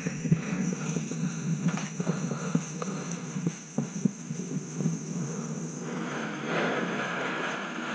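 Downhill mountain bike ridden over rough trail: a steady low hum with scattered knocks and rattles from the bike, and a rising hiss of tyres and wind near the end.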